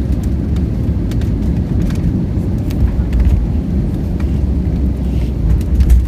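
Airbus A320neo landing, a loud steady low rumble with scattered light clicks and rattles, typical of the aircraft rolling down the runway after touchdown.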